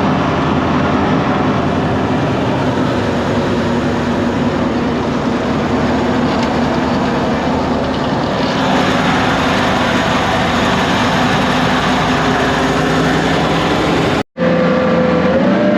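Toyota 1UZ-FE V8 in a jet boat running steadily under way, mixed with loud rushing water and wind noise. After a short break near the end, the engine's pitch rises briefly.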